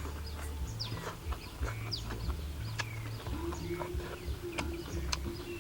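Small birds chirping again and again, with short high calls that sweep downward, over scattered sharp clicks and a low rumble. A steady low hum comes in a little past halfway.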